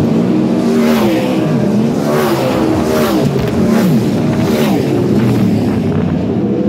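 A stream of winged 360 sprint cars, V8 engines at full throttle, passing close by one after another, about one a second, each pitch dropping sharply as it goes by.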